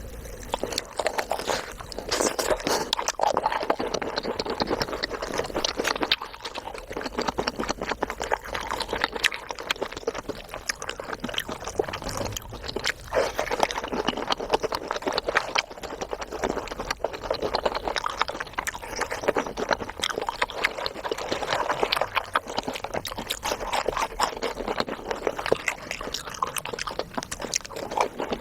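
Close-miked wet chewing and mouth smacking of sticky, cheesy food, a continuous run of small squelches and clicks.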